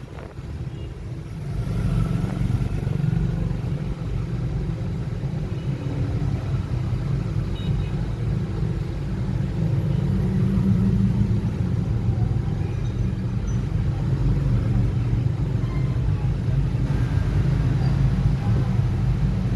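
Steady low background rumble, a little quieter for the first couple of seconds.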